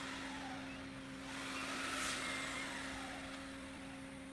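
Thin wooden strips rubbing and sliding against a wooden door frame as they are pressed into place by hand, a soft swell of rubbing noise peaking about halfway through, over a steady low hum.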